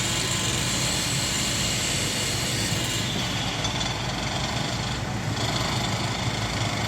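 A steady low engine drone with a constant rush of background noise.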